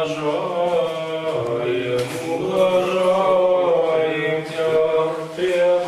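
Orthodox liturgical chant sung by men's voices: a low note is held steady beneath a slowly moving melody line.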